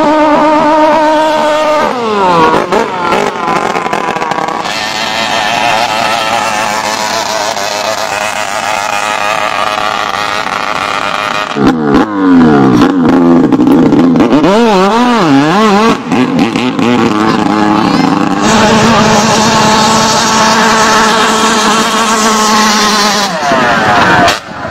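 Racing long-tail boat engines running hard at high revs. The pitch drops steeply as a boat passes by, once early and again near the end. Midway, an engine revs up and down several times in quick succession.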